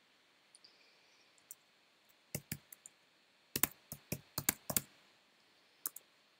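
Keystrokes on a computer keyboard. A few scattered taps are followed by a short run of typing about two seconds in, a faster run of about eight keystrokes around four seconds in, and a last pair of taps near the end.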